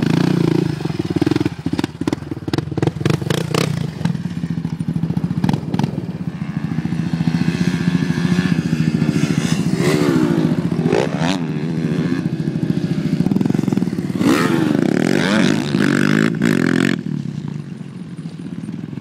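Yamaha Raptor 700 sport quad's single-cylinder four-stroke engine running under load as it rides off, the revs rising and falling repeatedly, with a few sharp knocks in the first seconds. The sound drops away about seventeen seconds in as the quad moves off.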